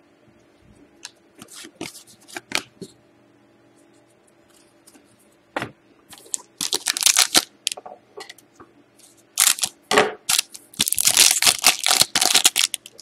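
Trading cards and a foil Upper Deck Artifacts hockey card pack being handled: scattered light clicks and rustles of cards set down, then the foil wrapper crinkling in loud bursts about six seconds in and again from about nine and a half seconds until near the end.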